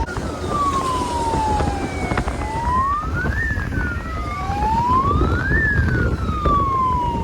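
Police-style electronic siren fitted to a motorcycle, wailing in slow sweeps: the pitch falls, rises, falls, rises and falls again, over the running noise of the moving bike.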